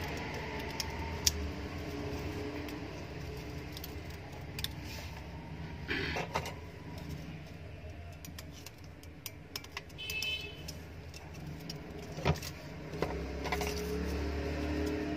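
Enamelled copper winding wire rustling and clicking against the steel stator as a coil is worked by hand into its slots, with a few sharper clicks, over a steady low hum.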